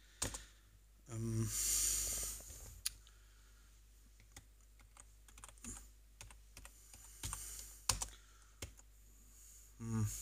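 Keys being pressed on a computer keyboard: sparse, irregular clicks while logging in, with a short breath about a second in.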